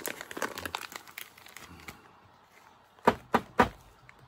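Plastic bag of pipe tobacco crinkling as it is handled for about the first two seconds. Three short, sharp pops follow about a quarter second apart, a little after three seconds in.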